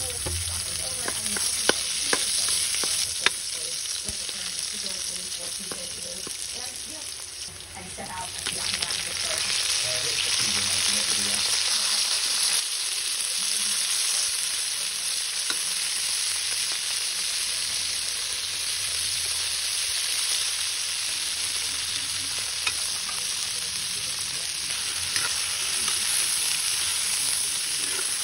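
Onions and garlic sizzling in hot oil in a wok, stirred with a metal spatula that clicks and scrapes against the pan. About eight seconds in the sizzle grows louder, and chicken pieces fry and are stirred steadily after that.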